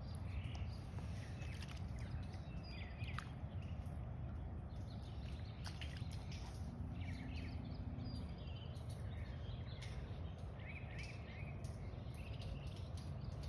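Birds chirping over a steady low rumble, with a few faint clicks and splashes from a large dog lapping muddy puddle water.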